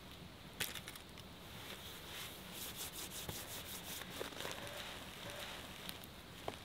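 Gear being unpacked from a canvas tote bag: faint rustling and crinkling with scattered light clicks and knocks, a few of them close together in the middle.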